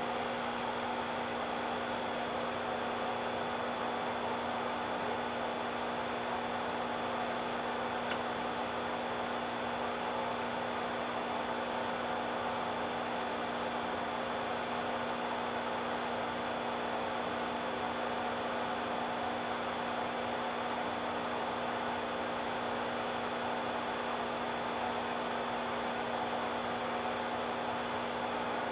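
Steady electrical hum with several steady tones from a freshly powered-up Geeetech Prusa i3 3D printer sitting idle, its power supply and electronics energised. A faint click about eight seconds in.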